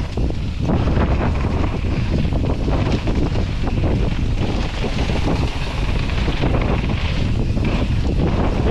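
Wind buffeting a camera microphone on a mountain bike descending a dry dirt trail at speed, a steady rush with constant short rattles and knocks from the bike and tyres over the ground.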